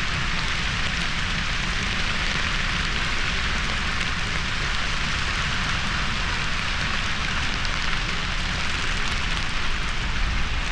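Grass fire burning on the mountainside: a steady, dense crackle of dry grass in flames over a low rumble.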